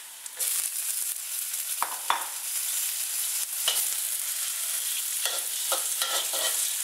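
Five-spice tofu hitting hot oil and garlic in a wok. The sizzle jumps up about half a second in and keeps going, while a metal spatula scrapes and clinks against the wok now and then as it stirs the tofu.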